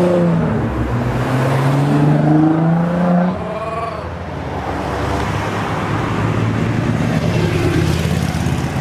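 A car engine revving up, its pitch rising steadily for about three seconds and then falling away, followed by steady engine running.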